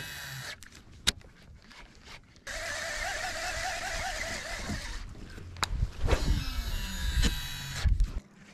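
Baitcasting fishing reel being cranked, a steady whir for about two and a half seconds, with sharp clicks before it and knocking, rubbing handling of the rod and reel after it.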